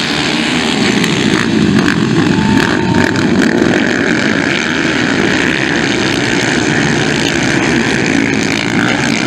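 A pack of motocross dirt bikes running hard together at race pace: a dense, steady, overlapping engine din that keeps its loudness throughout.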